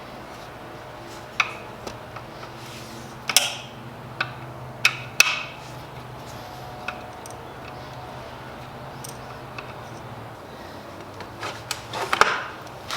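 Scattered sharp metallic clicks and knocks from hand tools and bolts as a seat rail is fitted to a Recaro bucket seat, with a quick run of knocks near the end.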